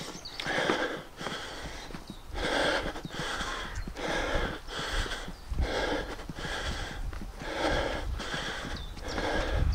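A man breathing rhythmically through his open mouth while jogging, in and out, with a breath roughly every two-thirds of a second. A low rumble runs underneath.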